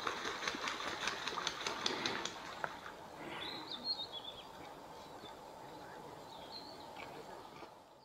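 Great cormorant taking off from a lake: wings beating and feet slapping the water in a rapid run of splashes for the first two and a half seconds or so. A few high bird chirps follow over quiet outdoor ambience, and the sound fades out at the end.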